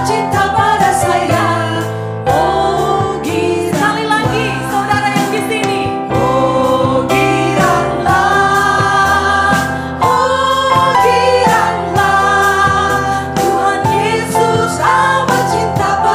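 Christian worship song: a group of singers over band accompaniment.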